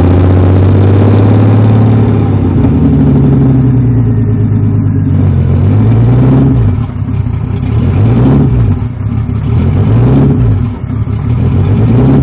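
Turbocharged BMW S52 straight-six idling cold, heard inside the cabin. The note is steady at first; from about six seconds in the idle hunts, the revs rising and falling about once a second, as the engine does until it warms up.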